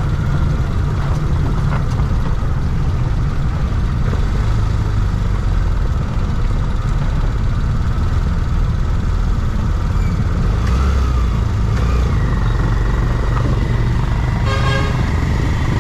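Steady low rumble of a motor vehicle running, with a short horn toot near the end.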